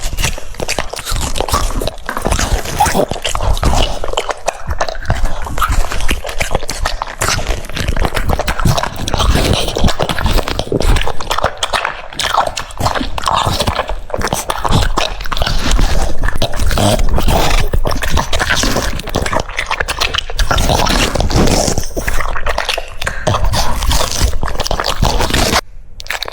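French Bulldog chewing and crunching food, a dense, irregular run of crunches and mouth clicks that cuts off abruptly near the end.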